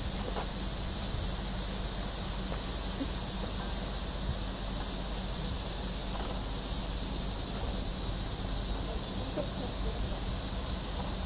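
Insects buzzing steadily in a high, even drone over a low steady hum.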